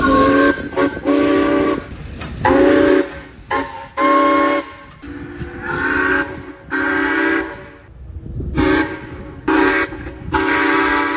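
A heritage train's multi-note chime sounding a long series of short and slightly longer blasts, about a dozen in all, each a steady chord of several pitches that starts and stops abruptly.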